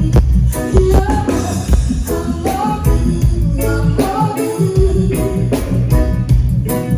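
Live band playing with singing: a strong bass line, guitar and a steady drum beat under the vocal, a sound-check run-through of a gospel-style song.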